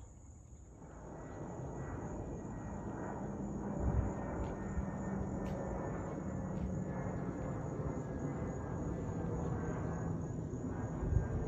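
Twin-engine jetliner passing overhead, its engine noise swelling about a second in and then holding steady, with a low hum and a faint whine. Insects keep up a high, steady buzz behind it, and two short low thumps come near the middle and near the end.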